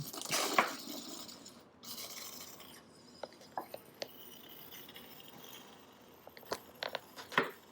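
Ketchup squeezed from a squeeze bottle, a rasping, sputtering squirt in the first second or so that fades out, followed by a few light clicks and taps near the end.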